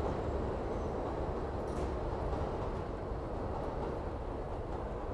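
New York City Subway J train pulling away along an elevated steel track: a steady rumble of wheels on rails that slowly fades.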